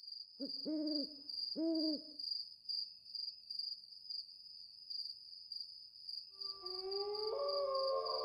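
An owl hoots twice, about half a second and two seconds in, over steady high crickets chirping in a regular pulse. About six and a half seconds in, several long overlapping wailing tones that slide slowly in pitch come in and build.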